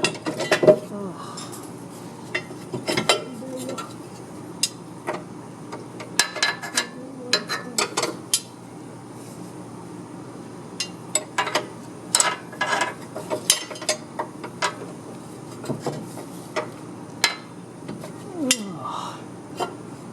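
Metal hand tools and car parts clinking and tapping at irregular intervals, with sharp knocks throughout, during mechanical work on the car.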